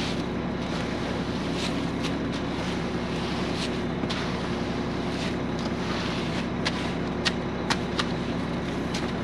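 An engine running steadily at an even idle, with a few short sharp clicks and knocks, most of them in the second half.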